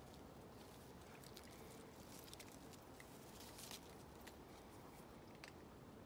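Near silence with faint, scattered crackles and rustles: a kitten moving through plum tree branches, its claws catching on the bark and the leaves brushing.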